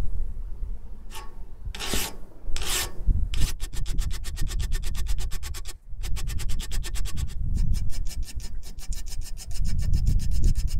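Hand file rasping across a thin metal strip clamped in a bench vise. A couple of separate strokes come first, then a fast, even run of filing strokes with brief pauses.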